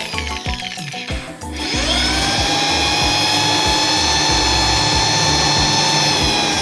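An electric power tool's motor spins up about a second and a half in, runs steadily with a high whine, and starts to wind down near the end, over background music with a steady beat.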